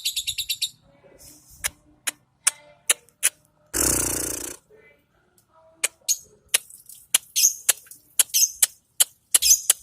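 Female lovebird calling: a rapid high chattering trill (its 'ngekek') that stops about half a second in, then scattered sharp chirps, with one loud harsh noisy burst lasting under a second around four seconds in.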